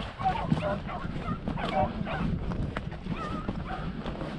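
Beagles baying: short, repeated pitched calls, some overlapping, coming at an uneven pace.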